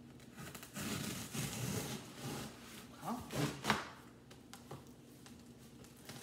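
Kitchen knife scraping and sawing at a taped cardboard box, with rustling of the cardboard and tape. About three seconds in there is a brief murmur of voice and a sharp click.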